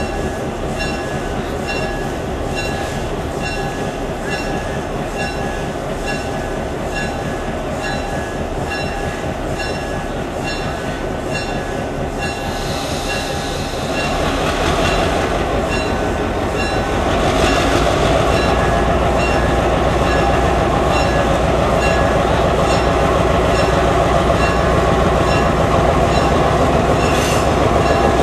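EMD GP7 diesel-electric locomotive's 16-cylinder two-stroke 567 engine running at a steady throb, which grows louder about halfway through and again a few seconds later as it throttles up and the locomotive pulls ahead. A bell rings steadily over it.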